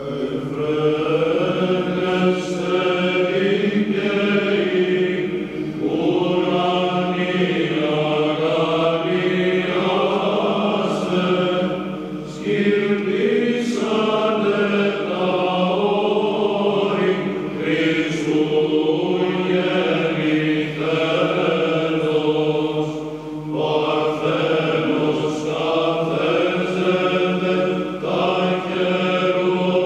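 Male choir singing Byzantine chant: Orthodox Christmas hymns over a steady held low drone, with short breaks between phrases.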